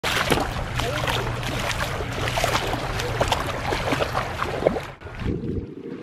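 Bare feet splashing and kicking through shallow seawater at the shoreline, with many quick splashes over a low wind rumble on the microphone. About five seconds in it drops to a quieter wash of small waves lapping on the sand.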